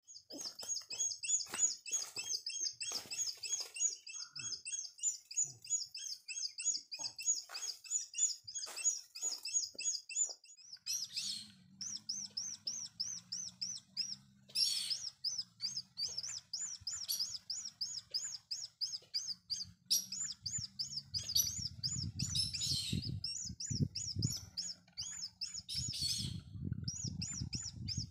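Barred rail calls: a fast, unbroken string of high, repeated notes. From about halfway a low rumble on the microphone comes in, strongest near the end.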